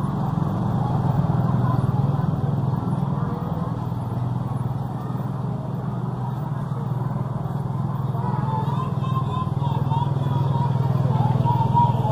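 A motorcycle engine runs steadily close by, its level easing off in the middle and building again toward the end.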